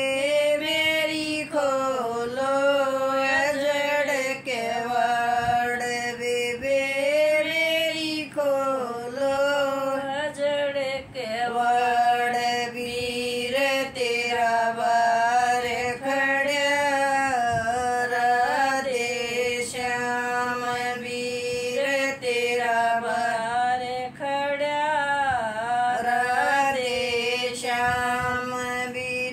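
An older woman singing a folk song solo, one voice in long held notes that waver and slide between pitches.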